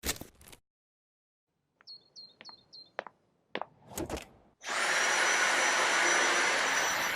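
A vacuum cleaner switches on about five seconds in and runs steadily: a dense rush of air with a thin high whine. Before it there are a few short clicks and small high chirps.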